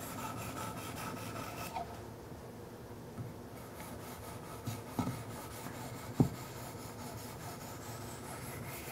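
A fine 1000-grit Wicked Edge sharpening stone rubbing along the steel blade of a Kershaw Skyline knife: a quiet, even rasping of stone on steel. The rubbing eases off about two seconds in, and a few light taps come later, the sharpest about six seconds in.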